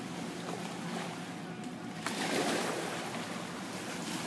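Wind noise on the microphone over open lake water, with light water lapping: a steady rushing hiss with a slight swell about two seconds in.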